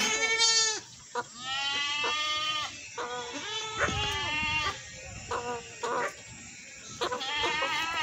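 Goat bleating repeatedly, about six calls of varying length, the longest held for over a second.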